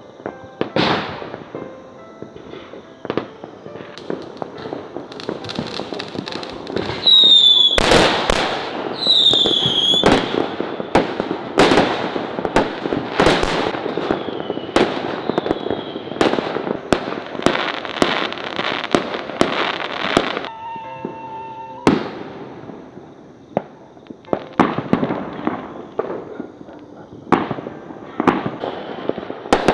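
Fireworks going off: a long run of sharp bangs and crackles, thickest about a quarter of the way in through the middle, with several short high whistles among them.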